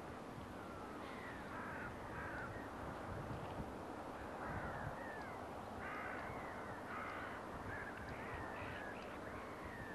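Faint calls from a group of birds: short calls come every second or so, often overlapping, over a steady low background noise.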